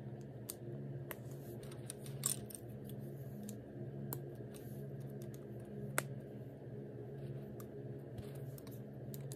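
Scattered light clicks and rattles of plastic construction-toy rods and connectors being handled and snapped together, over a steady low hum.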